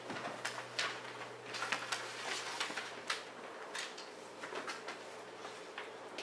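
Scattered soft clicks and rustles of people moving in a quiet room, over a faint steady low hum.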